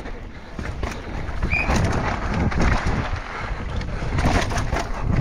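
Downhill mountain bike riding over rough ground: wind rushing over the microphone with the rattle and knocks of the bike. It gets louder about a second in.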